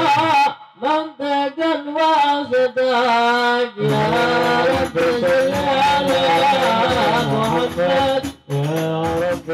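A man chanting a maulid recitation into a microphone. About four seconds in, a fuller sound joins him: more voices and the beat of hadroh frame drums.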